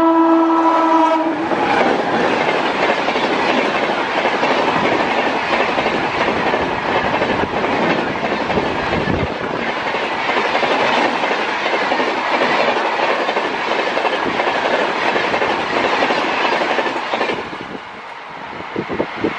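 Indian Railways superfast express train passing at speed. The locomotive's horn sounds a steady chord for about the first second, then the wheels and coaches make a loud, even rush as they roll past. The rush drops away sharply near the end as the last coach goes by.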